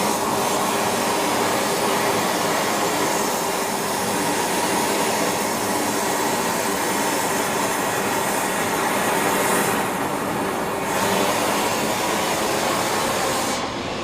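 Gas torch flame burning steadily while melting silver in a crucible: a loud, even hiss.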